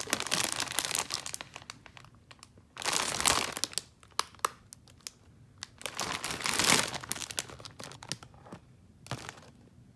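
Crinkling of snack packaging being handled, in three bouts about three seconds apart and a short one near the end.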